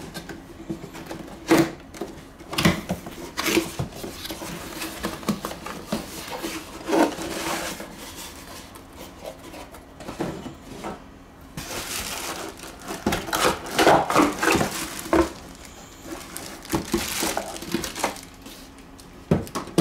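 Cardboard product box being opened and handled by hand: irregular scrapes, taps and rustles of the flaps and packing as the contents shift, busiest about halfway through.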